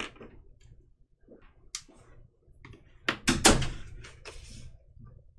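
Pens and markers being put down and picked up on a tabletop while a notebook is handled: scattered clicks and knocks, with a heavier knock and rustle about three seconds in.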